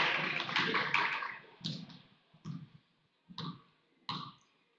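Basketball bouncing on a hardwood gym floor as it is dribbled: four separate bounces a little under a second apart, after gym crowd noise fades in the first second or so.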